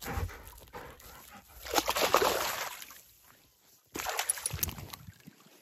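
Lurcher in a shallow stream, water sloshing and splashing around it. The loudest bout comes about two seconds in and a second, weaker one about four seconds in.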